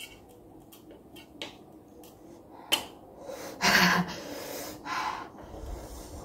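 Wooden chopsticks clicking a few times against a steel plate while trying to grip a round cooked egg that keeps turning away, then a loud breathy laugh a little past halfway, with softer breaths after it.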